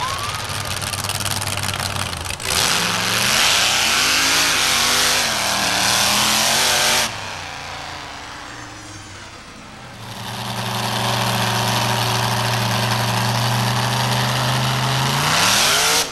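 Monster truck engine revving hard, easing off for a few seconds around the middle, then running at a steady high rev under load, with a rising rev near the end.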